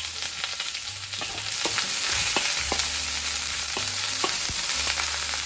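Sliced onion sizzling in hot oil in a wok, with a spatula scraping and knocking against the wok a dozen or so times as it is stirred.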